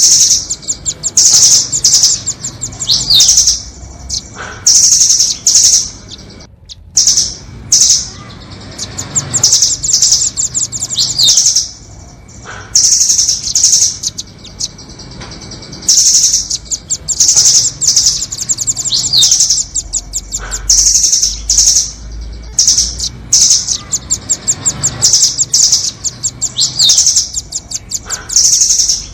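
Nuthatches calling: bursts of rapid, high-pitched chirping trills, each under a second long and repeated every second or two, with a quick rising note now and then.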